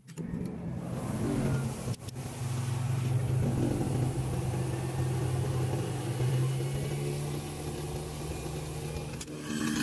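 A newly installed garbage disposal running on its test run with water flowing through it: a steady motor hum over the rush of water. It starts just after the beginning and stops shortly before the end.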